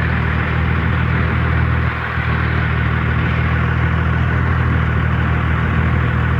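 Truck engine running steadily at idle, a constant low hum with a broad rushing noise over it.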